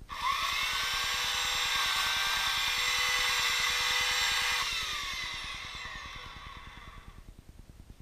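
Electric chainsaw starting instantly and running at full speed with a steady high whine. About four and a half seconds in, the trigger is released: the motor winds down, falling in pitch, and fades out.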